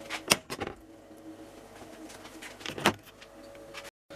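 Light clicks and knocks of meat slices being laid by hand into a glass baking dish, a few about half a second in and another pair near three seconds in, over a faint steady hum.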